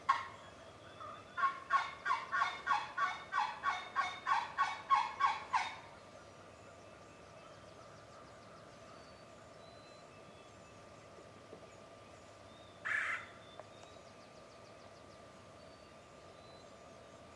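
Turkey yelping: a run of about fifteen evenly spaced yelps, about three a second, that stops about six seconds in. A single short, harsher call comes about thirteen seconds in, over faint small-bird chirps.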